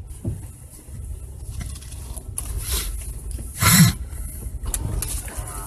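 Low engine and road rumble heard from inside a slowly moving car's cabin, with one short louder noise a little under four seconds in.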